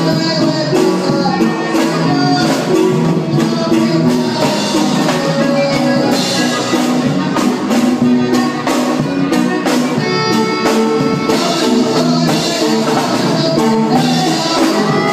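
Loud dance music with a steady drumbeat and percussion.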